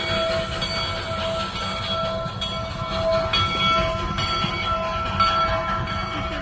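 Replica Union Pacific No. 119 steam locomotive moving slowly, its bell ringing about one and a half strokes a second over the steady rumble of the locomotive.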